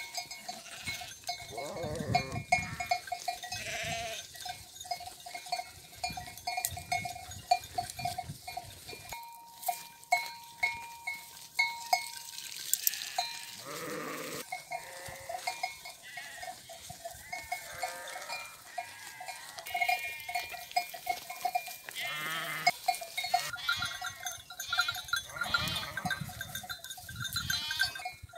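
Metal neck bells on grazing sheep clanking irregularly, with sheep bleating a few times.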